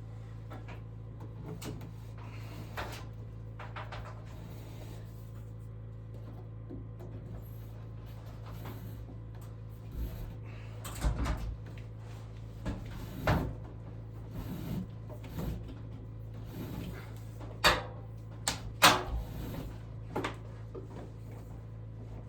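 Scattered light knocks and clicks, as of things being handled and set down, over a steady low hum; two sharper knocks come close together a little past two-thirds of the way through.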